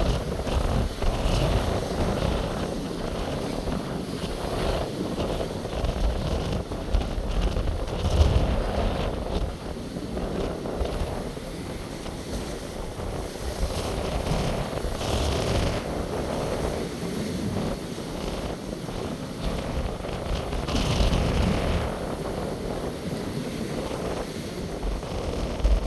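Strong wind of about 60 km/h buffeting the microphone in gusts, over the wash of sea waves. Stronger gusts come about 8 seconds in, again around the middle, and near the end.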